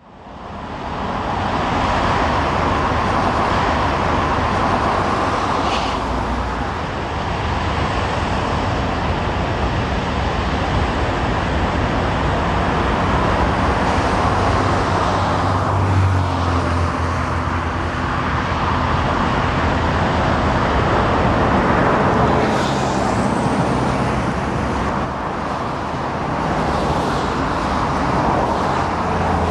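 GE diesel freight locomotives running slowly past, with a steady engine drone and wheels rolling on the rails. A couple of brief high squeals come through, about 6 seconds in and again past the 20-second mark.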